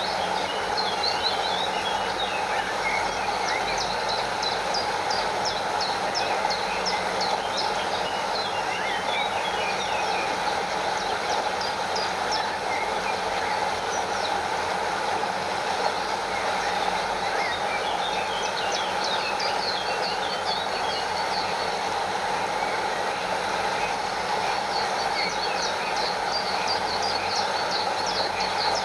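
Steady rush of a stream and a small waterfall, with spells of quick high chirps over it.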